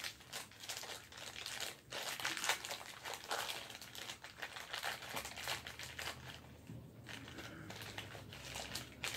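Minifigure packaging crinkling as it is handled and opened by hand: irregular rustles and crackles, busiest in the first half and thinning out after about five seconds.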